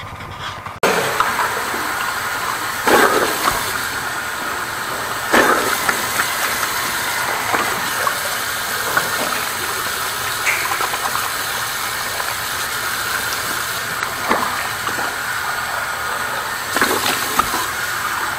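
Loud, steady rush of water that cuts in abruptly about a second in, with a few knocks over it.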